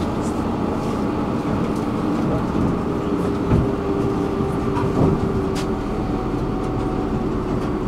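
Tram running along its rails: a steady rumble with a couple of low knocks from the wheels on the track, and a steady whine that comes in about halfway through.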